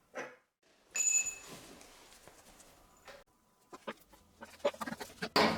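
A sharp metallic clink about a second in, ringing briefly, then scattered small knocks and clicks of hands handling parts, with a louder clatter near the end.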